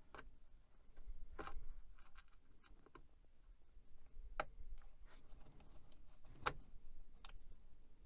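Scattered light clicks and knocks, about six of them, from handling computer hardware while a hard drive is fitted into an old PC.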